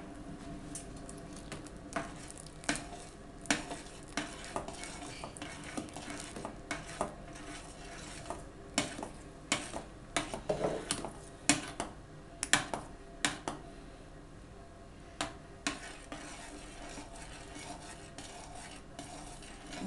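Metal spoon stirring a stainless steel pot of boiling strawberry liquid, clinking irregularly against the pot's sides as potato starch is stirred in to thicken the kissel.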